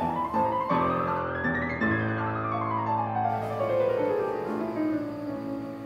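Piano music with held chords and a line of notes that climbs and then falls, fading out near the end.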